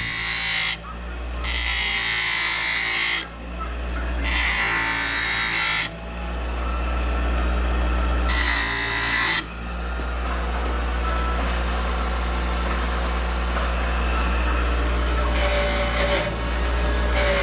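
Power grinder grinding the broken metal bellcrank of a mower in about four loud passes over the first ten seconds, each cutting off sharply, with lighter contact near the end. A steady low hum runs underneath throughout.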